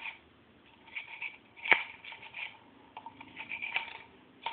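Handling noise from a small revolver cylinder and a bore brush on a cleaning tool's handle: scattered light clicks and scrapes, with one sharper click a little under two seconds in.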